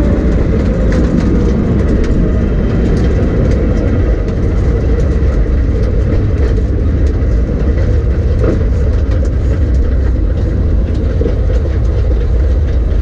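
Steady, loud low rumble of a race car heard from inside its cabin, with scattered rattles and clicks.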